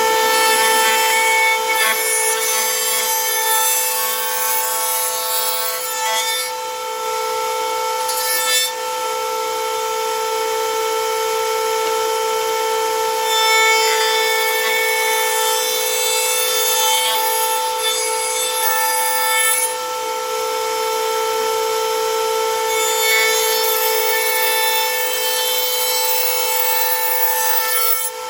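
Makita 1¼ HP compact router running at full speed in a router table, a steady high whine, while a quarter-inch roundover bit cuts the edge of a scrap of wood in three stretches of rasping cutting noise. A vacuum runs with it for dust collection.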